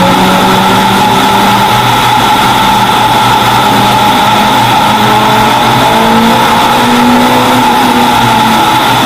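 Toyota Celica race car's engine running hard at speed on a circuit, its pitch gliding up and down with the throttle, heard from the bonnet over a steady rush of noise.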